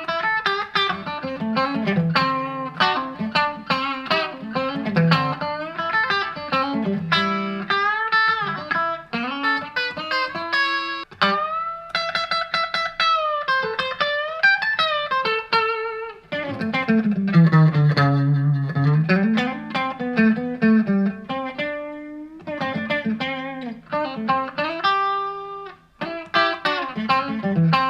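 Fender Modern Player Telecaster electric guitar played through a Vox VT20X modelling amp, with the pickup selector on the in-between position that pairs the middle single coil with the bridge humbucker. It plays a noodling blues-style lead of single notes and string bends, with a note held for a second or two about halfway through.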